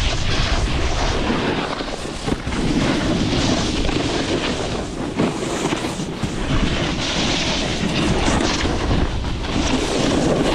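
Snowboard riding heard through a rider-worn microphone: steady rushing wind noise and the board sliding over snow, with a few brief knocks.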